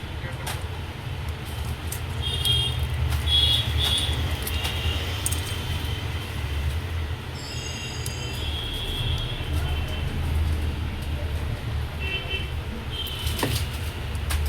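Steady low traffic rumble with several short, high-pitched toots scattered through it.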